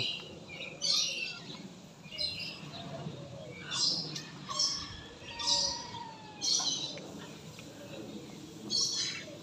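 Birds in an aviary calling: short, high, harsh calls repeating roughly once a second, about seven in all.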